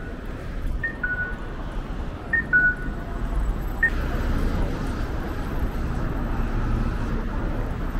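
Japanese pedestrian crossing signal playing its electronic 'cuckoo' chime: a short high note followed by a longer, lower note, repeating about every second and a half and stopping about four seconds in. Steady street traffic noise runs underneath.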